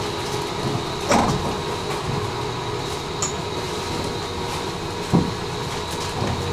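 Tram running along its rails: a steady rumble with faint steady whining tones, and two sharp knocks, about a second in and again about five seconds in.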